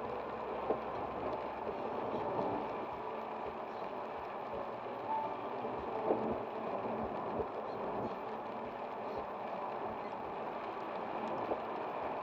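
Steady road noise inside a car driving at motorway speed in rain, tyres running on the wet road surface, with a few light ticks scattered through.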